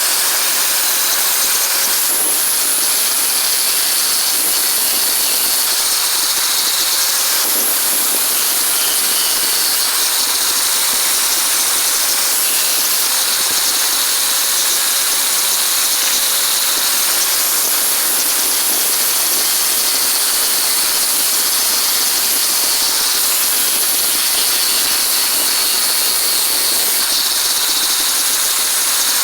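Steady, loud hissing noise that runs without a break, as from a workshop tool or compressed air at work.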